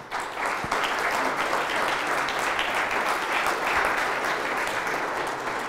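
Audience applauding steadily at the end of a talk, dense clapping from many hands.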